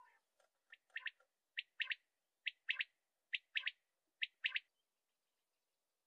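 Male common quail singing its 'wet-my-lips' song: a short note and then two quick notes, repeated about once a second, five times.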